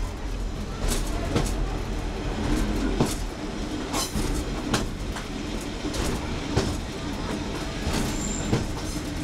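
Class 101 diesel multiple unit on the move: a steady low engine drone under irregular clicks and knocks from the wheels running over the track, with a brief high squeal near the end.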